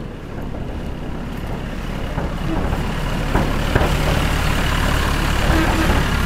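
Heavy construction machinery running with a steady low engine drone that grows slightly louder, with a few sharp metallic knocks from about two seconds in.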